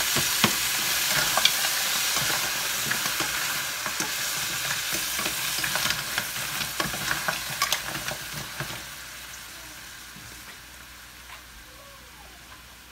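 Food sizzling in a stainless steel skillet while a wooden spoon stirs it, with many small clicks and scrapes of the spoon against the pan. The stirring stops about two-thirds of the way through and the sizzle dies down.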